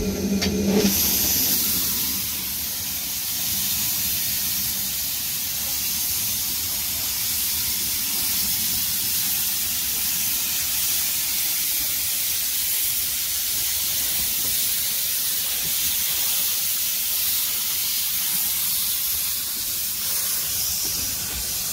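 Steam hissing steadily from the narrow-gauge steam locomotive Maid Marian, a Hunslet saddle-tank engine, with steam escaping low at its front. A short low hum sounds at the very start.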